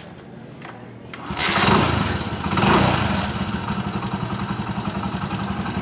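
Freshly rebuilt Hero Splendor Plus single-cylinder four-stroke motorcycle engine starting about a second in, revving briefly, then settling into a steady, even idle that the mechanic judges a good, healthy sound.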